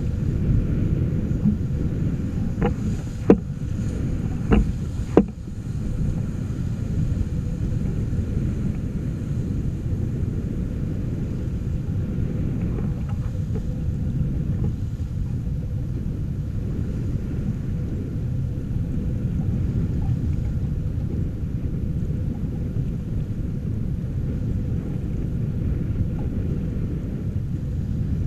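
Wind buffeting the microphone and water rushing along the hull of a sailing yacht under way, a steady low noise. A few sharp knocks come a few seconds in.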